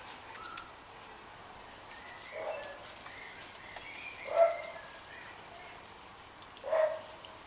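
Maine Coon cat giving three short meows about two seconds apart, the middle one the loudest.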